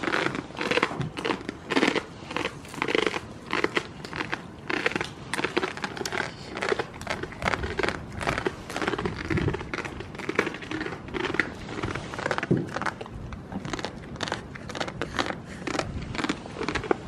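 Goats munching dry hay close up: a steady run of quick, irregular crunching bites and hay rustling, several a second.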